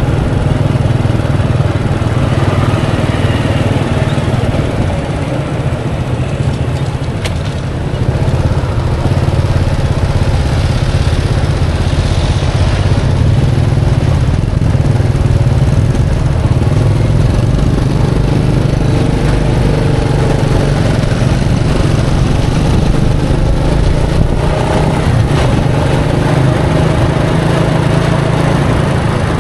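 Small motorbike engine running steadily, heard up close, with road and traffic noise.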